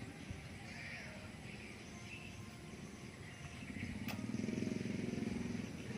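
Faint, short high chirps repeat throughout, the twittering of swiftlets. A low engine hum swells up from about three and a half seconds in and fades near the end, the loudest sound here.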